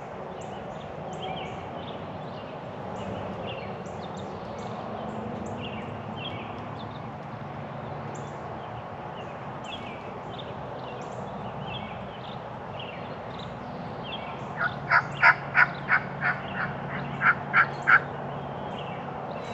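About fourteen seconds in, a run of turkey yelps at about three a second: eight yelps, a short pause, then three more. Small songbirds chirp faintly in the background throughout.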